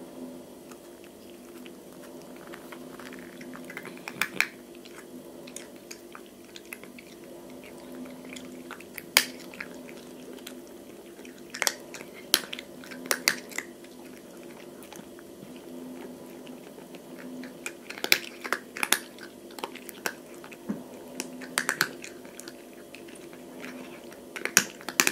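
A cat chewing dry kibble: sharp crunches that come in irregular clusters of a few bites at a time, over a steady low hum.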